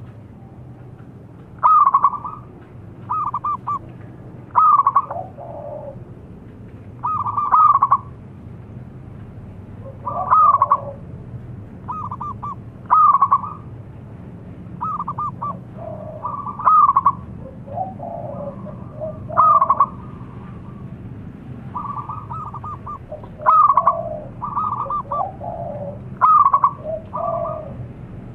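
Zebra dove (perkutut) giving its loud, repeated cooing call: short, rolling, stuttering coo phrases, one every second or two, some ending on lower notes.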